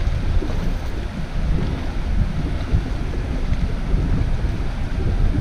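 Wind buffeting the camera microphone in a steady, uneven low rumble, with choppy water around the boat.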